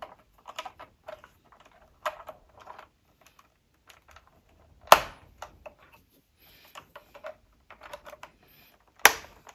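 Plastic clamp bricks clicking and rattling as the assembled rear wing is pressed onto a brick-built model car, with two sharp snaps about five seconds in and near the end.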